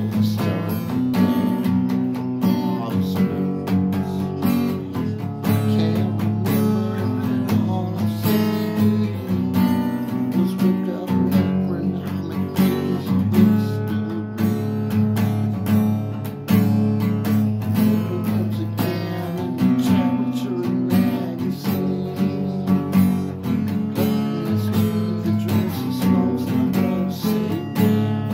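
Acoustic guitar strummed continuously, with chords rung out in a steady rhythm of many strokes.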